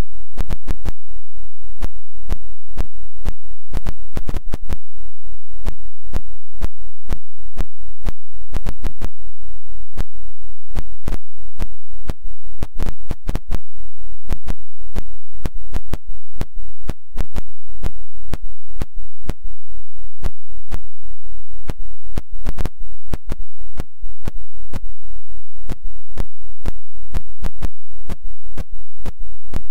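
Keelcrab hull-cleaning robot working on a boat's underwater hull: a loud, steady low drone, broken by rapid, irregular crackling clicks.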